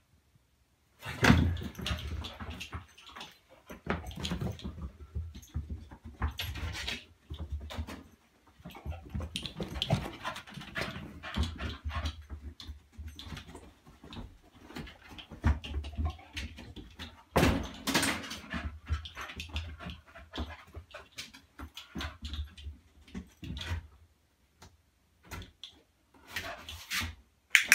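Staffordshire bull terrier on a scent search in a small room, sniffing, starting about a second in: a long, irregular run of scuffs, knocks and bumps as its paws and body scrabble against a chair and a cupboard.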